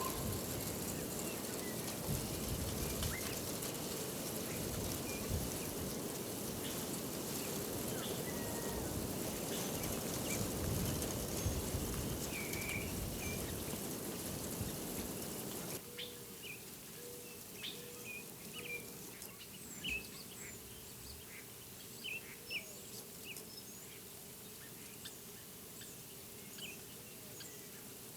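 Outdoor ambience of scattered short songbird chirps over a steady rushing noise. The noise cuts off abruptly about halfway through, leaving quieter, busier chirping.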